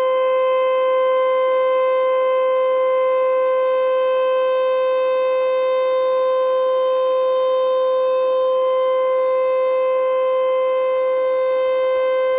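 Federal Signal Eclipse8 electronic outdoor warning siren sounding a steady tone during a test, holding one unchanging pitch at an even loudness.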